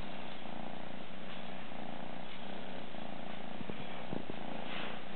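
Maine Coon kitten purring steadily while being stroked.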